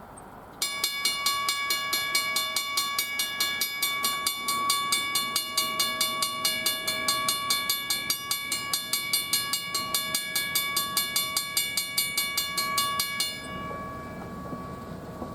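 Railroad grade-crossing bell ringing rapidly, about four strikes a second. It starts suddenly and cuts off about two seconds before the end, leaving a low rumble.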